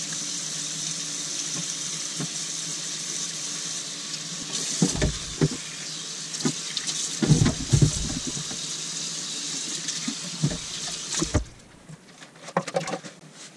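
Kitchen faucet running into a stainless steel sink while a car's air cleaner lid is rinsed and scrubbed under it, with a few knocks as the lid is handled against the sink. The water shuts off near the end.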